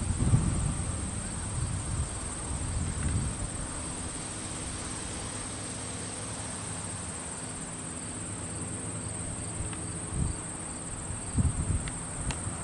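Crickets and other insects chirping steadily in a high, even chorus, with low rumbling bumps of wind or handling on the microphone near the start and again near the end.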